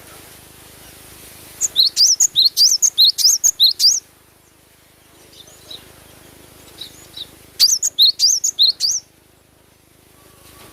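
Glatik batu (cinereous tit) singing: two quick bursts of sharp, high, repeated chirping notes, about five a second, with a few faint notes in the pause between them.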